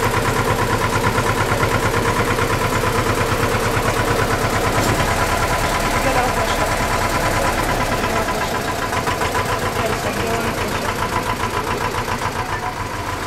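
Tour boat's engine running steadily, with a fine even pulse and a fixed hum; a little quieter over the second half.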